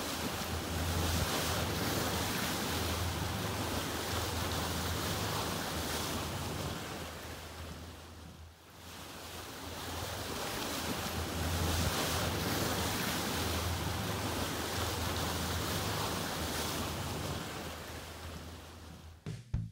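Steady rush of wind and water noise, heavy in the low end. It fades away briefly about halfway through, swells back, and fades out near the end as drum music starts.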